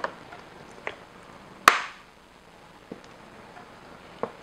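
Measuring spoon and sriracha bottle clinking and tapping against a mixing bowl while sauces are measured in: about five separate sharp taps, the loudest a ringing clink a little under two seconds in.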